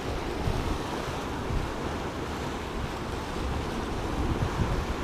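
Wind buffeting the microphone over the wash of sea waves against rocks: a steady rushing noise with uneven low rumbling.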